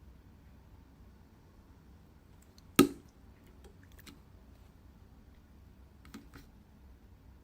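Glossy, syrupy slime being handled, giving one sharp loud pop about three seconds in and a few faint clicks a little later.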